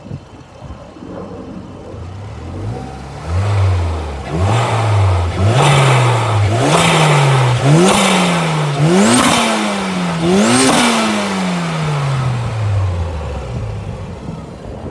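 Intake sound of a Toyota Celica GT-Four's turbocharged 3S-GTE inline-four, heard at an HKS mushroom-type open air filter. The engine idles, is blipped about seven times in quick succession, each rev climbing a little higher, then falls back slowly to idle.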